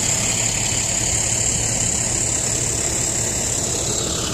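Crash truck's engine idling steadily, a low even hum with a steady high hiss above it.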